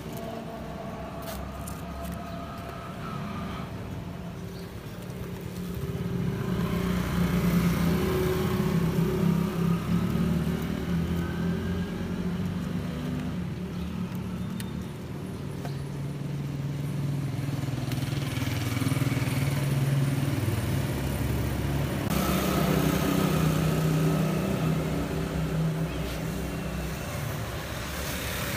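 Road traffic passing close by: car and motorcycle engines swell and fade one after another, several passes in all, over a steady background rumble.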